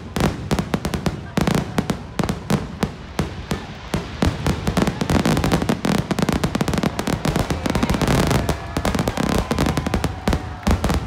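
Aerial fireworks shells bursting in rapid succession, a dense barrage of bangs and crackles that gets busier about halfway through.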